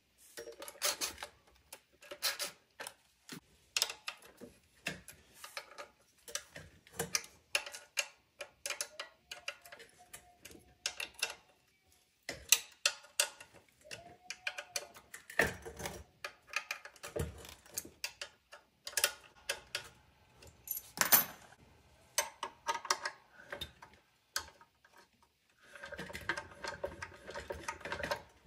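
Irregular small metal clicks, taps and clinks from a screwdriver and small parts handled on a portable generator's alternator end around the brush holder, with a denser run of clatter near the end.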